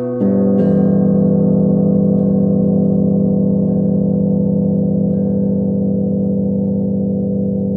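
Russian flat bells, Zhikharev's tuned metal plates, struck about three times in quick succession, then left ringing in a long, low chord that wavers with a slow beat. A faint higher tone joins about five seconds in.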